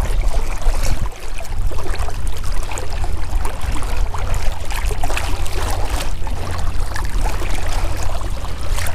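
Wind rumbling on the microphone over choppy water lapping and splashing, with many small irregular splashes.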